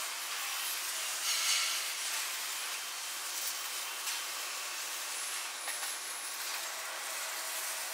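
Steady hissing shipyard ambient noise, with a few faint clicks and a brief high tone a little past the middle.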